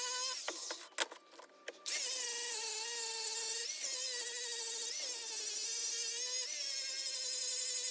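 A small high-speed electric power tool motor whining, its pitch dipping and wavering as it is loaded. About half a second in it cuts out for around a second, with a few clicks, then starts running again.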